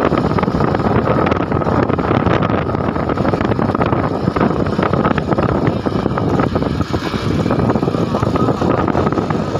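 Motorcycle being ridden along at a steady pace, its engine running under a heavy rush of wind on the microphone.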